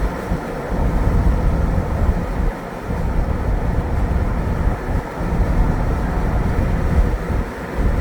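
Rialta RV driving: a steady, uneven rumble of road and engine noise.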